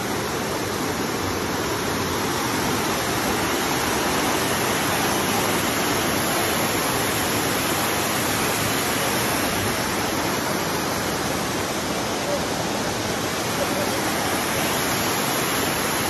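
Water rushing steadily down a rocky cascade waterfall, an even, unbroken rush.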